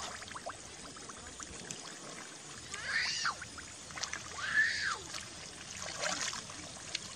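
Wet mud squelching and water trickling as hands dig through a flooded rice-paddy bottom. Two short high calls, each rising then falling in pitch, come about three and about four and a half seconds in, the second the loudest.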